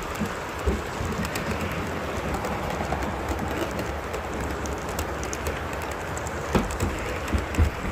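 Model freight train rolling past close by on layout track: a steady rolling rattle with scattered wheel clicks, and a few low thumps near the end.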